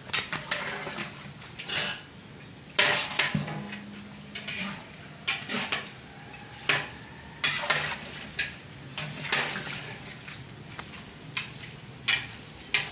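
Long metal ladle stirring raw mutton, yogurt, onions and spices in a large metal degchi, knocking and scraping against the pot at irregular moments.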